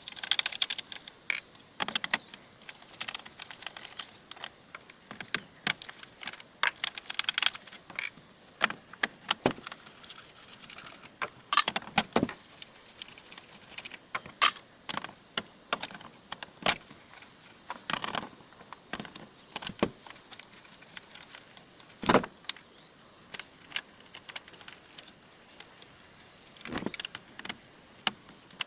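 Irregular clicks, clinks and clatter of small metal parts and hand tools being handled while an oscilloscope is taken apart, with a few louder knocks about 12 and 22 seconds in.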